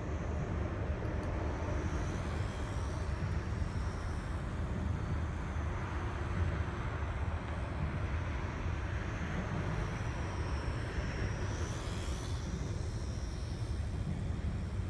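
Steady low outdoor rumble, with the faint high whine of a micro RC airplane's small electric motor and propeller overhead, bending in pitch as the plane passes about twelve seconds in.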